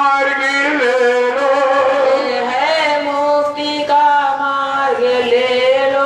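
Devotional bhajan music: long held melodic notes that slide between pitches over a steady lower note, with no drum beat.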